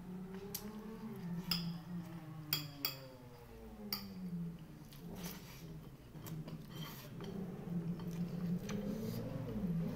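Eating by hand at a table: scattered sharp clinks of a plate and dishes, with chewing. Underneath runs a steady low drone whose pitch slowly rises and falls.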